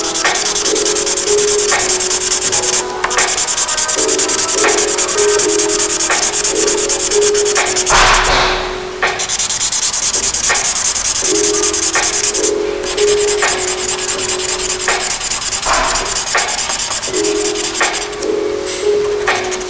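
Yellow felt-tip marker colouring in on paper with fast back-and-forth strokes: a steady scratchy rubbing, broken by a couple of brief pauses where the pen lifts.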